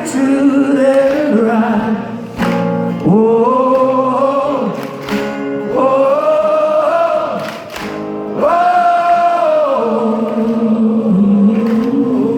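Rock band playing live with sung vocals, several long held notes that swoop up into pitch.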